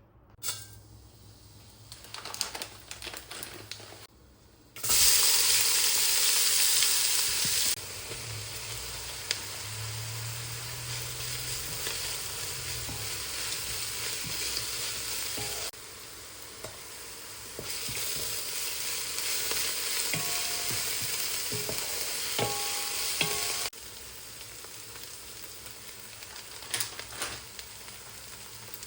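Food sizzling as it fries in hot oil in a pan for a curry, with the scrape and clink of stirring. The sizzle starts loud about five seconds in and then settles lower, dropping in steps.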